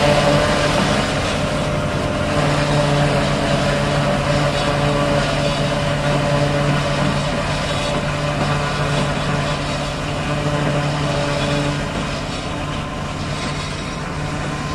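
90 hp Sonalika tractor engine running steadily under load, powering a two-row DEP Celikel silage harvester as it cuts and chops the crop and blows it out of the spout. A constant engine hum over a dense chopping and blowing noise, growing slightly fainter near the end.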